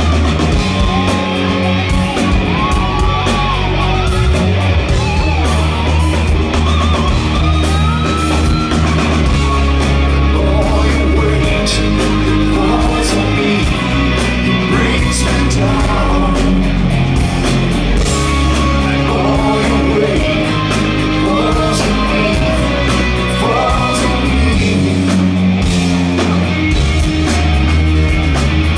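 Live rock band playing loudly, with electric guitars, bass, drums and a lead singer.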